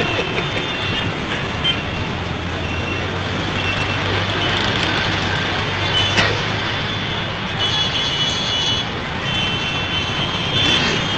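Steady road traffic noise from passing vehicles, with an engine hum that grows stronger from about two seconds in and fades around seven seconds.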